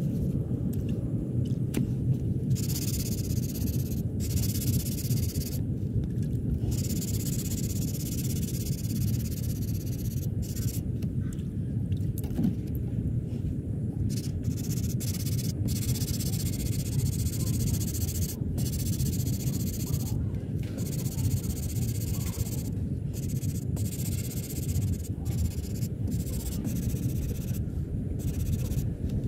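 Hissing that comes in bursts of one to several seconds, starting and stopping abruptly, over a steady low rumble.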